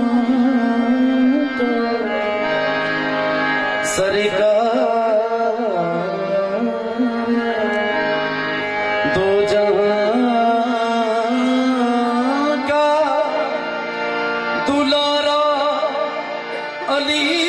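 Qawwali: men singing a devotional melody in long, gliding notes over a steady harmonium drone, with tabla.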